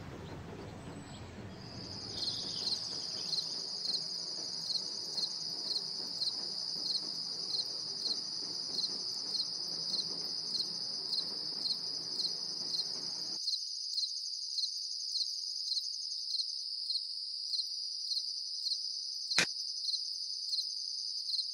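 Crickets chirping: a steady high trill that starts about two seconds in, with a louder pulse about twice a second. One sharp click near the end.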